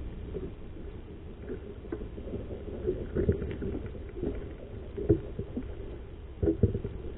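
Handling noise in a small boat as a caught fish is worked out of a landing net: a few dull knocks and bumps, loudest about five seconds in and twice near the end, over a steady low rumble.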